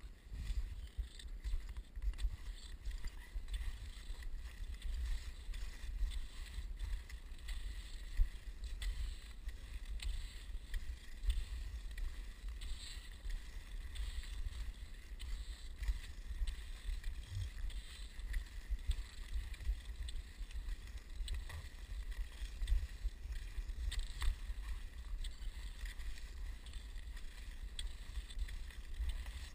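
Wind rumbling on the microphone as skis glide along a packed snow trail, with faint irregular scraping and hissing of the skis on the snow.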